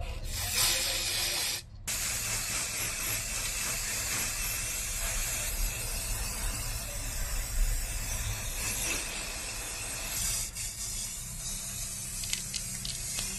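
A steady spraying hiss, with a few faint ticks near the end.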